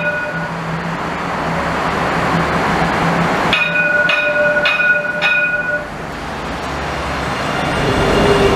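Tram running into a station with a steady rolling hum, its warning bell ringing four times about half a second apart a few seconds in. Near the end a low tone slowly falls in pitch.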